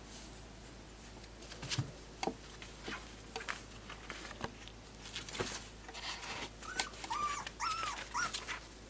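Four-week-old Pembroke Welsh Corgi puppy whimpering: about five short, high whines in quick succession in the last couple of seconds. Before that, scattered rustles and scratches as it moves about on a fabric sheet.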